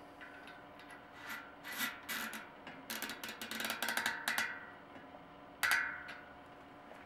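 A SRAM bicycle cassette's lockring being screwed onto the rear hub by hand: irregular metal rubbing and clicking in bursts, busiest between about three and four and a half seconds in, with one short louder scrape near the end.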